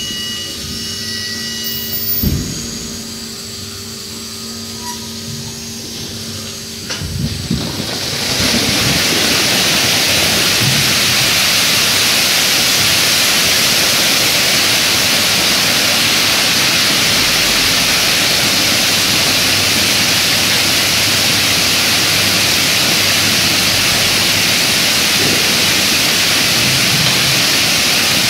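Dairy yard flood wash releasing: a low steady hum with a thump, then about eight seconds in a loud, steady rush of water surges across the concrete yard.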